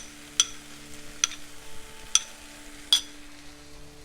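A utensil clinking against a cooking pan four times, each a sharp ringing tap, over a faint steady hum.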